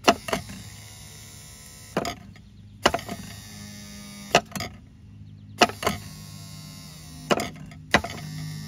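Volvo Penta SX-A power trim/tilt pump's 12-volt electric motor running with a steady hum, broken by about a dozen sharp clicks at irregular intervals.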